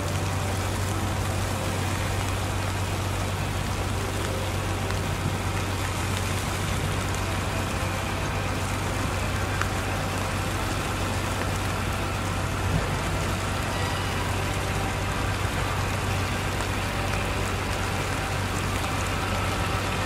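City traffic on a snow-covered street: a steady low hum of engines under a constant hiss, like tyres running through wet snow and slush.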